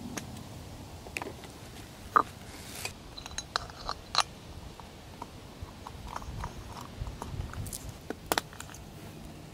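Metal camping cookware being handled: a metal mug pulled off a nested gas canister, then a compact folding gas stove's arms swung out and the stove fitted onto the canister, giving scattered metallic clicks and clinks, the sharpest about two seconds in and near the end.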